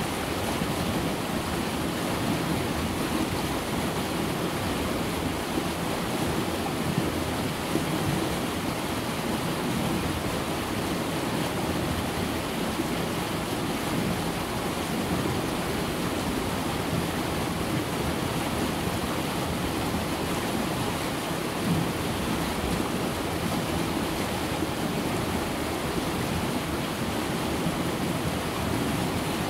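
River rapids running over rock ledges and through pools: a steady, unbroken rush of white water.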